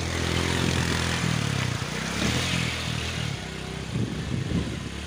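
Honda motorcycle engine running as the bike wades through shallow river water, with water splashing around it. The engine note rises and falls between about one and three seconds in.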